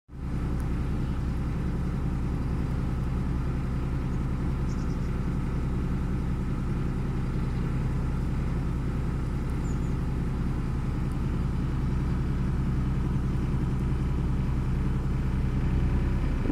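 A canal boat's inboard engine running steadily while under way at slow cruising speed, a low, even hum.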